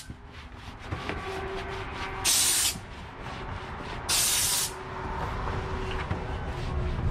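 McCulloch steam cleaner's wand releasing two short blasts of hissing steam, each about half a second long, around two and four seconds in.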